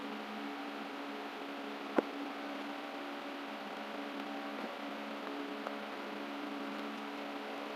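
Steady machine hum, with one sharp plastic click about two seconds in and a couple of faint knocks later as a satellite-dish LNB housing is handled and fitted with an antenna.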